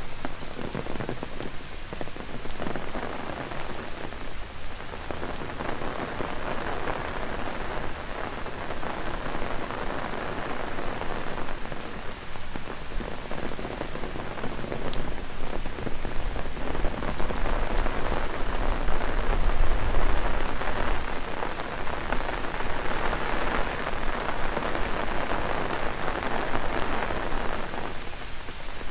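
Heavy rain pattering on an umbrella, dense and uneven, growing loudest about twenty seconds in, over a steady high drone of cicadas.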